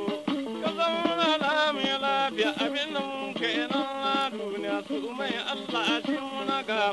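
Traditional Hausa music: a long-necked folk lute with a wooden neck and leather-lashed string, playing a wavering, ornamented melody with many quick note attacks.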